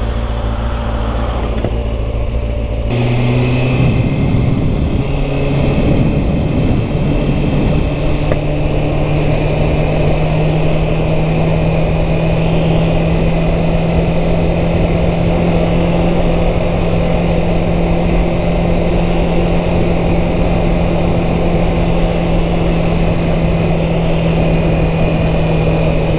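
Kawasaki Ninja 636's inline-four engine idling, then pulling away about three seconds in, its revs rising as it accelerates before settling into a steady cruise. Wind rushes over the microphone once it is moving.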